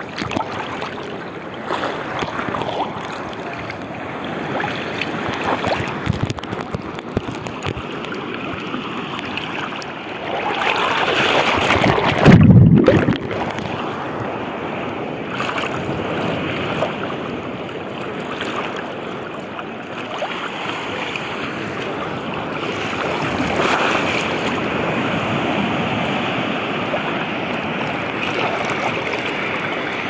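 Seawater sloshing and lapping around a camera held at the surface by a swimmer, among small waves. About twelve seconds in, water surges in louder and turns briefly muffled and boomy for about a second.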